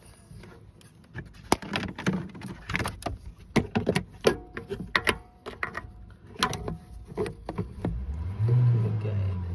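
Hands and a torch knocking and clicking against parts in a car's engine bay around the turbo intake pipe: a quick run of sharp clicks and knocks, followed near the end by a low rumble of handling.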